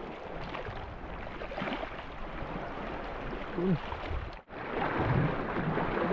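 Sea surf washing against a rocky shore, with wind buffeting the microphone; the sound drops out for an instant about four and a half seconds in.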